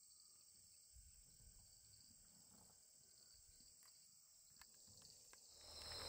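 Very faint, steady high-pitched chorus of night insects, growing louder near the end.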